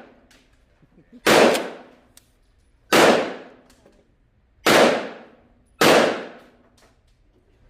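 Kel-Tec KSG 12-gauge pump-action shotgun fired four times, the first three about a second and a half apart and the last one quicker, each loud shot ringing out briefly.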